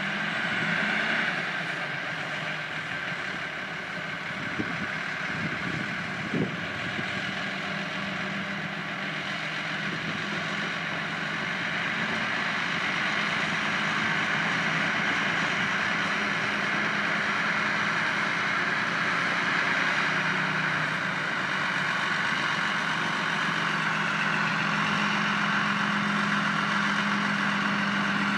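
Lyd1 narrow-gauge diesel locomotive's engine running steadily as it hauls its coaches past, a constant drone with a held tone. Two brief knocks come about four and a half and six and a half seconds in.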